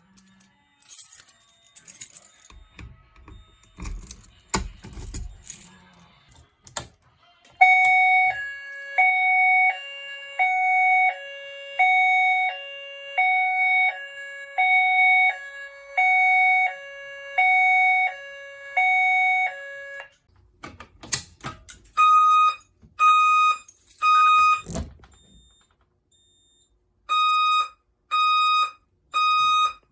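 Fire alarm signals during a walk test. A two-note hi-lo alarm tone alternates steadily about once a second for around twelve seconds. After a few knocks it is followed by the temporal-three evacuation pattern: three beeps, a pause, then three more.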